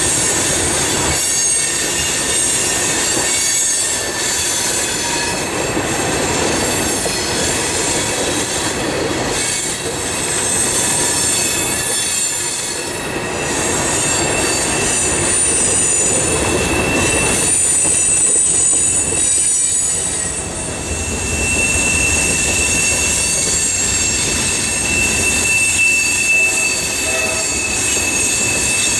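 Freight train of tank cars and covered hoppers rolling past close by. The wheels rumble over the rails while the flanges squeal on the curve in thin, high, ringing tones; a steadier, lower squeal joins in about two-thirds of the way through.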